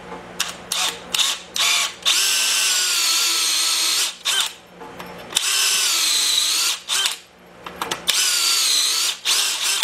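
Electric drill spinning a countersink bit into the cast-iron Willys L-head engine block, countersinking the hole and cutting into the edge of a freshly installed crack-stitching pin. A few quick trigger bursts are followed by three longer runs, with the motor's pitch dipping and recovering as the cutter bites.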